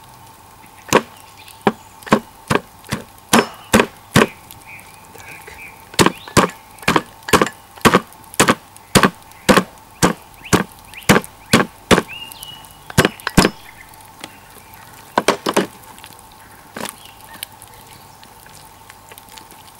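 A hatchet striking the spine of a steel cleaver held on a whole raw chicken on a wooden cutting board, chopping through and breaking the bird's bones and joints to flatten it for chicken tabaka. There are about thirty sharp strikes, mostly about two a second, then a short pause and a few more strikes near the end.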